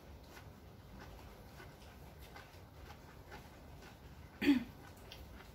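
Quiet eating sounds: faint scattered clicks of cutlery and chewing. One short loud sound comes about four and a half seconds in.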